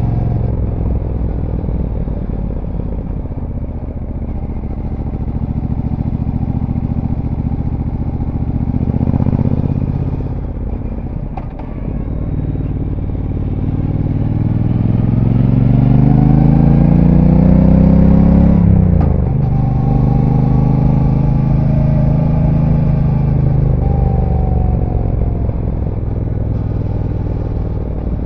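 Brixton Cromwell 1200's 1222 cc parallel-twin engine on its stock exhaust, heard on board while riding. It runs steadily and eases off around ten to twelve seconds in. From about thirteen seconds it pulls with rising pitch for several seconds, then the pitch falls sharply just before nineteen seconds and it settles back into steady running.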